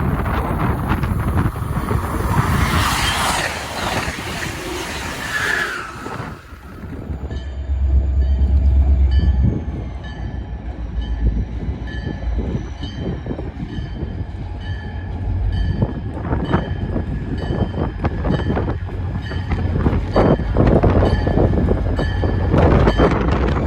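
Passenger train passing close by on the electrified Northeast Corridor. A broad rushing rumble comes first; after about six seconds, a steady whine with one slowly falling high tone rides over a deep rumble, and wheels click repeatedly over rail joints in the second half.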